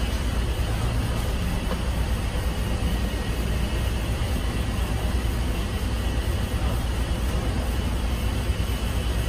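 Steady low rumble of street traffic with general outdoor street noise, no single event standing out.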